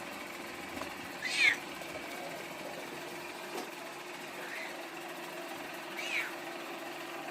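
Bengal kitten mewing: two short, high-pitched mews, one about a second in and one about six seconds in, with a fainter mew between them.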